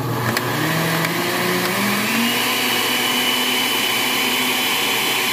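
Oster countertop blender running on a jug of soup, its motor stepping up in pitch over the first two seconds with a few clicks as the speed buttons are pressed, then holding a steady high whine.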